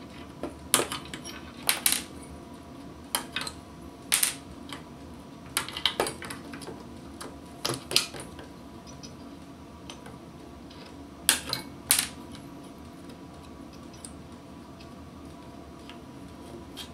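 Wire cutters snipping through component leads on a circuit board: about a dozen sharp clicks in irregular clusters, stopping after about twelve seconds, over a faint steady hum.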